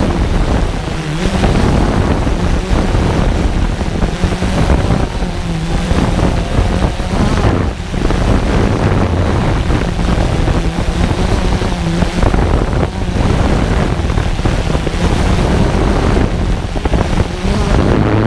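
Multicopter drone's electric motors and propellers humming steadily, the pitch wavering as the craft holds and shifts position, with wind buffeting the microphone.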